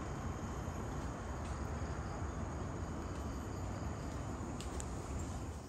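Steady outdoor ambience: a faint, even drone of insects, with wind rumbling on the microphone.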